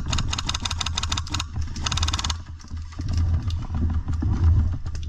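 Airsoft rifle firing rapid full-auto bursts: a fast rattle of shots for about the first second and a half, then another short burst about two seconds in, over a steady low rumble.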